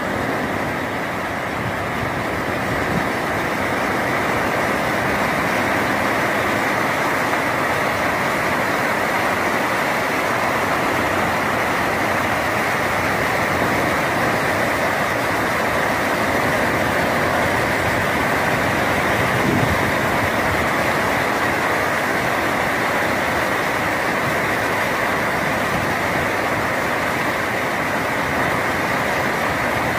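Steady splashing and rushing of sea water churned white by a school of fish feeding at the surface, spreading up to the rocks.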